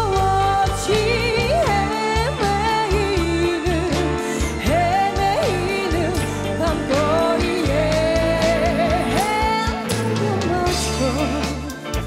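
A woman singing a Korean popular song live into a microphone, holding long notes with vibrato, backed by a band.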